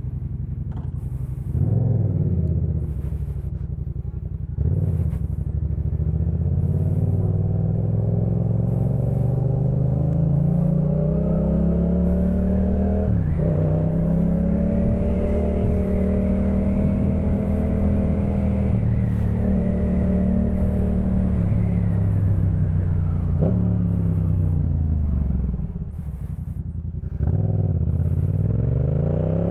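Yamaha MT-07's 689 cc parallel-twin engine running through a Jeskap K4 full aftermarket exhaust on the move. It accelerates with the pitch rising through the revs and drops sharply at gear changes about 13 and 23 seconds in. The engine eases off to a low note a little before the end, then pulls away again with rising revs.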